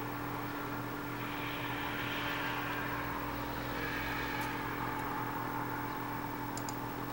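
Stepper motors of a CNC microscope stage running as they drive the stage across a chip, with a steady whine over a low hum. A higher hiss swells and fades twice along the way.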